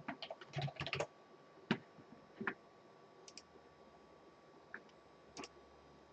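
Keys tapped on a computer keyboard: a quick run of keystrokes in the first second, then single clicks spaced about a second apart.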